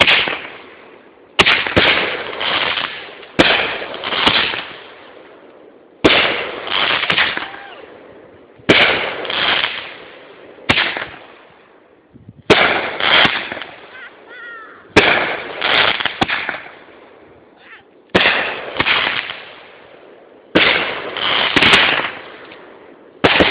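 Fireworks going off: a sharp report every two to three seconds, about ten in all, each followed by a quick cluster of pops and crackle that fades away.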